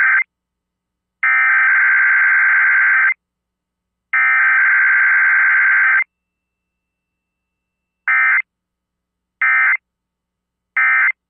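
Emergency Alert System SAME digital header bursts, the buzzing data signal sent three times about a second apart. After a two-second pause come three short end-of-message bursts, with no attention tone or voice message between them, as in a Required Weekly Test.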